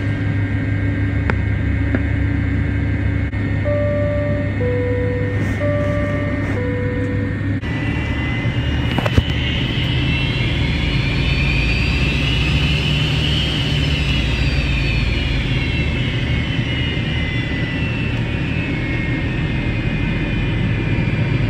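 McDonnell Douglas MD-88's rear-mounted Pratt & Whitney JT8D engines heard from inside the cabin near the tail. A steady rumble turns into a fuller roar at about eight seconds, with a whine that rises in pitch and then falls. A two-tone chime sounds twice, about four to seven seconds in.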